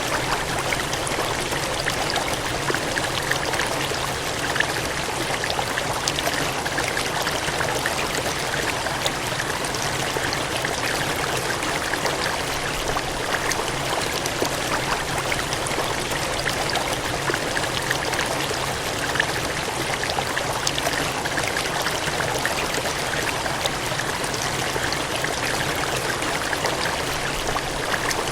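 Steady gushing water, a stream or cascade running without change.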